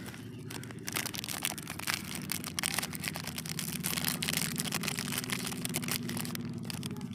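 Battery-operated egg-laying toy hen running: a steady low motor hum with dense, rapid plastic clicking and rattling that starts about a second in.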